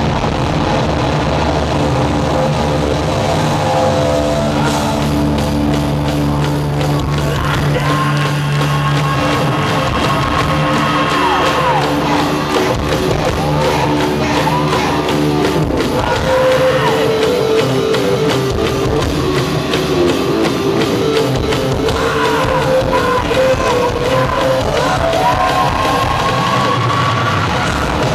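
Loud hard-rock band playing live in a large hall: distorted electric guitars, bass and drums, with a sung vocal line, picked up from among the audience.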